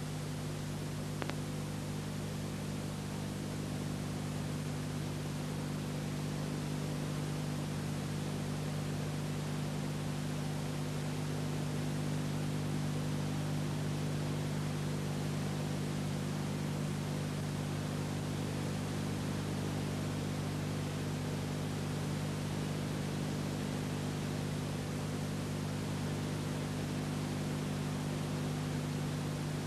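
Steady recording hiss with a low electrical hum underneath, the noise of an otherwise silent old film transfer's audio track; a single faint click about a second in.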